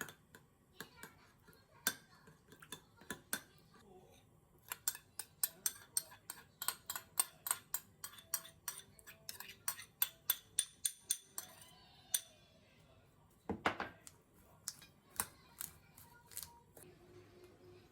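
Kitchen clatter: a run of quick, sharp clicks and knocks from utensils and dishes, with a louder knock near the end.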